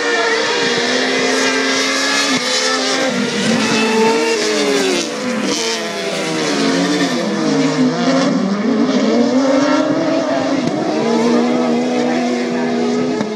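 Several autocross race cars' engines running hard on a dirt track. The engines are held at a steady high pitch at first, then several engine notes rise and fall across one another through the middle as the cars accelerate, shift and lift for corners, then settle to a steady pitch again near the end.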